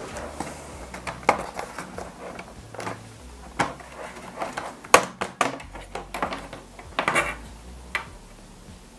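Plastic bottom case of a Toshiba laptop being pried off by hand: a run of irregular plastic clicks and snaps as its clips let go, the loudest about five seconds in.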